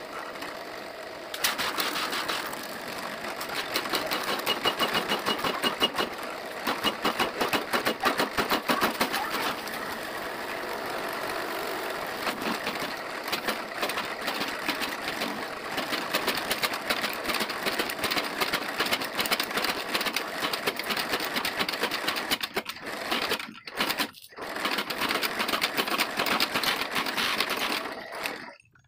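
Bench drill press running and boring a round hole into an HPL-laminated plywood panel, a rapid rasping chatter as the bit cuts into the board. The cutting starts about a second in, drops out briefly about three-quarters of the way through, then resumes and stops just before the end.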